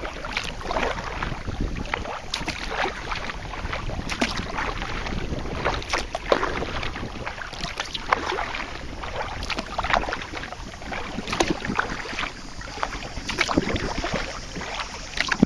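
Water splashing and slapping against a kayak on choppy water in irregular splashes every second or two, with a low rumble of wind on the microphone.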